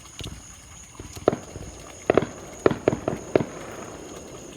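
Fireworks going off: a single sharp bang about a second in, then a rapid run of about five bangs and cracks between two and three and a half seconds in.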